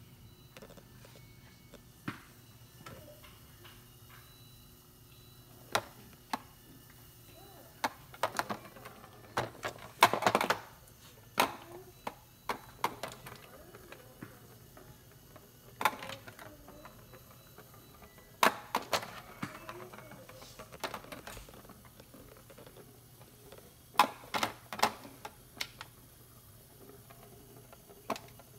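Irregular sharp clacks and rattles of a ball knocking around the clear plastic track of a Petstages Invironment Nature Track cat toy as a kitten bats at it, coming in scattered clusters.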